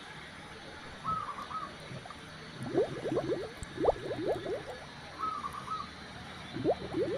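Zebra dove (perkutut) cooing: two runs of quick, short rising notes, one about three seconds in and another near the end. A short, higher call sounds about a second in and again about five seconds in, over a steady background hiss.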